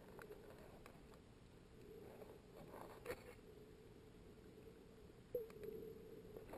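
Near silence underwater: a faint, steady low hum with scattered small clicks and snaps, two of them sharper, about three and five seconds in.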